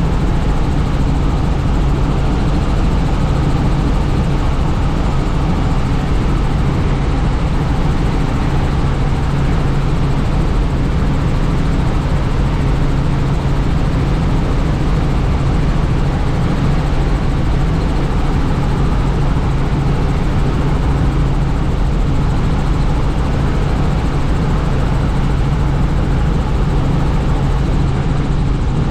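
Helicopter in flight heard from on board: a steady low hum from the rotor and engine under a constant rushing noise, unchanging in level.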